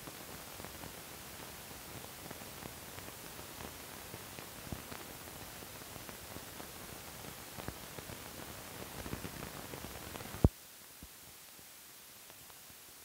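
Surface noise of an old 1960s film soundtrack running over the end card and black leader: a steady hiss with scattered crackles and pops. About ten and a half seconds in there is one sharp, loud pop, and after it only a fainter hiss remains.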